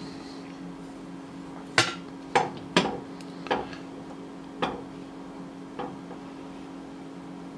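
Sharp clicks and knocks, about six spread out, from a metal rod being slid into a white plastic probe block and the parts set down on a workbench. A steady low hum runs underneath.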